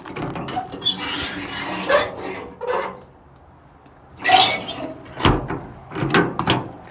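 Metal service-body compartment drawers and doors being slid and shut: two stretches of sliding, rattling noise with a few squeaks, then three sharp metal clacks near the end as they close and latch.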